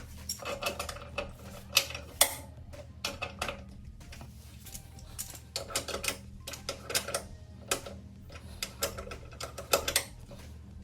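Irregular clicks, taps and knocks of hand work with tools and oil containers, over a steady low hum.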